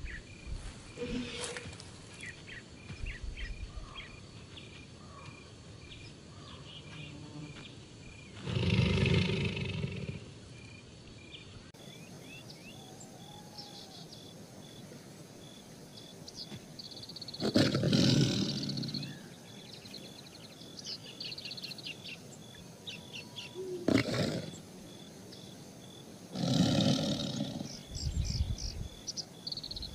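Tiger roaring, four loud, deep roars spaced several seconds apart, the first two the longest. High, short, repeated chirping runs underneath.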